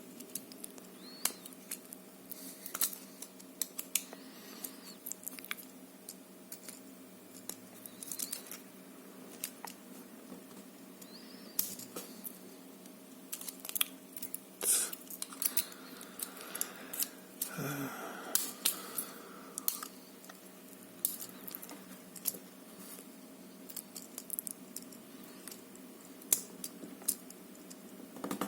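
Small metal tools clicking and scraping against the C-clip and core of an ABUS D6 dimple lock cylinder as the clip is pried off. There are irregular sharp ticks throughout, and a longer scrape about 17 seconds in.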